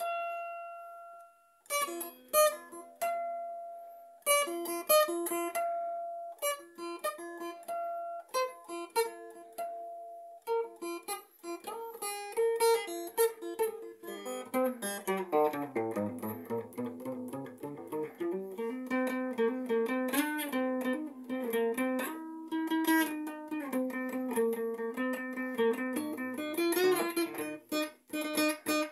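Acoustic guitar played solo: a single ringing note at the start, then separate picked notes, and from about halfway fuller playing with bass notes under the chords.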